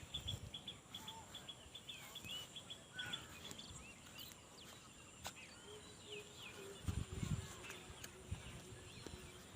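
Faint small birds chirping: a quick run of high chirps over the first few seconds, then scattered short calls. A few low bumps come about seven seconds in.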